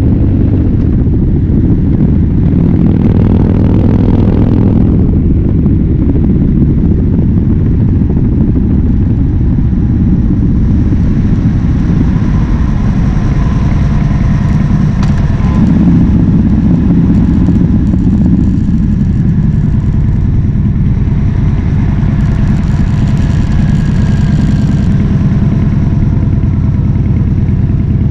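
Harley-Davidson Fat Bob V-twin through a KessTech ESM3 exhaust, running loud under way, its pitch rising and falling as the throttle changes.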